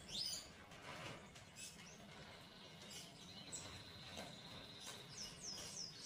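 Caged budgerigars chattering: quick chirps, a buzzy trill held for about two seconds in the middle, and a run of short falling chirps near the end.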